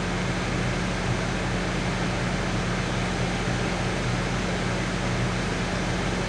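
MARC diesel commuter train standing with its locomotive idling: a steady low engine drone with an even hum over it.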